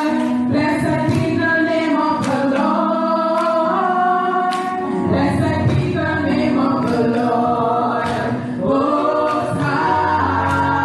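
A small group of women singing a gospel praise song into microphones, with sharp handclaps about once a second.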